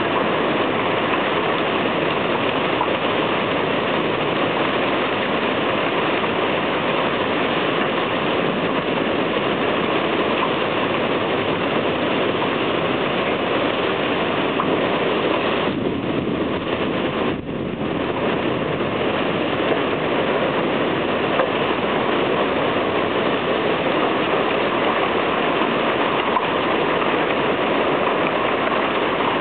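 Heavy thunderstorm downpour of rain and hail pelting down, a loud steady rushing noise that eases briefly a little past halfway.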